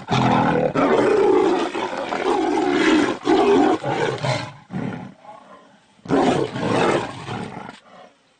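Tigers roaring while they fight. The roaring is loud and rough for about four and a half seconds, dies down briefly, then comes again in a second burst about six seconds in before fading out.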